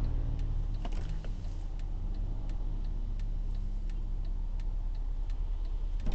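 Steady low rumble of a car's engine and rainy traffic heard inside the cabin, with a regular ticking about two and a half times a second.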